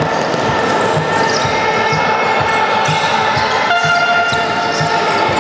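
Basketball bouncing and players' feet thudding on a sports-hall floor during play, irregular and echoing in the large hall. Under it runs a steady set of held tones that shifts to a new pitch about two-thirds of the way through.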